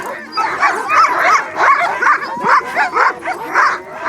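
A team of sled dogs yipping and whining excitedly, many voices at once in short overlapping high calls.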